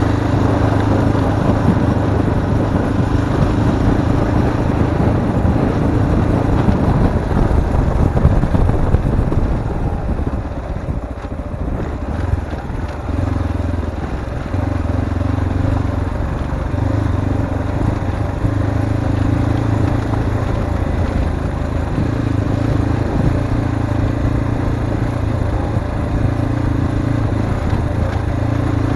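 Zongshen RX3 Cyclone's single-cylinder engine running under way on a rough off-road track, over a dense rush of wind and ground noise. About a third of the way in the engine drops back for a couple of seconds, then the throttle is opened and eased repeatedly, every second or two.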